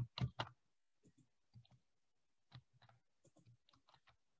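Clicks of a computer mouse and keyboard: three sharp clicks in the first half second, then fainter scattered clicks.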